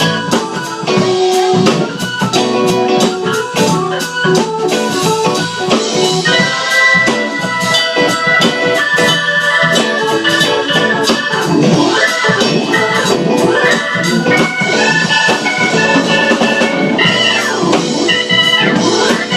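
Live band keyboard solo with sustained chords and runs, over a steady drum beat.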